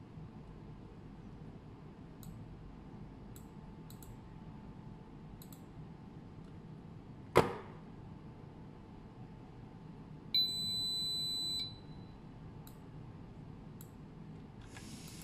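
Faint keyboard typing, then a single sharp click about seven seconds in. About three seconds later a brushless motor driven by the ODESC controller gives a steady high-pitched calibration beep, just over a second long: the motor-calibration step, in which the driver measures the winding's resistance and inductance.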